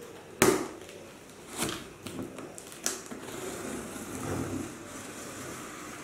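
Cardboard shipping box being handled and its packing tape slit open with a cutter. There is a sharp knock on the cardboard about half a second in, a few smaller knocks and scrapes after it, and a longer rustling scrape around four seconds in.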